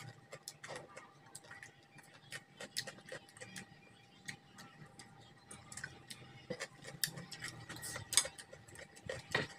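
Metal fork and spoon clicking and scraping against ceramic plates while eating: many small irregular ticks, with a couple of louder clinks about eight and nine seconds in, over a faint steady hum.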